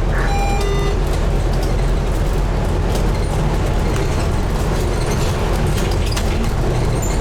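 Scania N250UD double-decker bus under way, heard from the front of the bus: a steady low engine drone with road noise and scattered body rattles. A short run of falling electronic tones sounds near the start.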